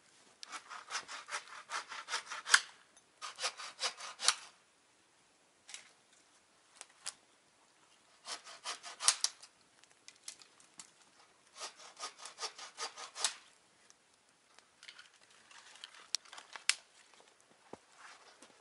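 Hand saw cutting through wood in four bouts of quick back-and-forth strokes, about five a second, with short pauses between bouts. A few single sharp snaps fall in the pauses.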